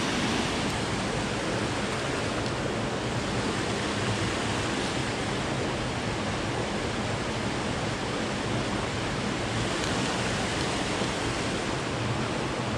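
Creek water rushing steadily over rocks, an even unbroken rush.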